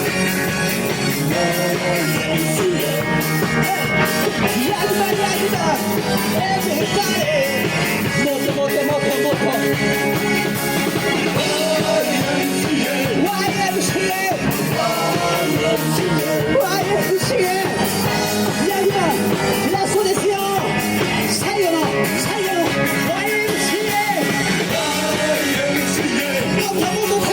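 Live band playing a song, with a lead vocalist singing over it.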